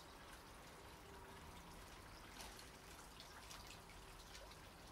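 Faint drips and trickles of pond water around a tube container held under the surface and lifted out, a few small ticks among a near-silent hiss.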